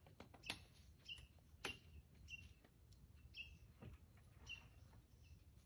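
Faint bird chirping: short high chirps repeating about once a second, with a few soft clicks, over near silence.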